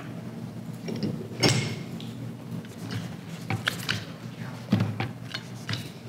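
Metal clicks and knocks from handling a hydraulic cable crimper as a cable end is seated in its crimping head and the head's latch is swung shut; a few sharp knocks, the loudest about one and a half seconds in.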